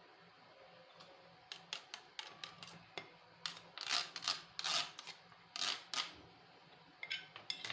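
A run of short dry scraping strokes and light clicks from metal kitchen utensils working freshly grated ginger, louder in the middle.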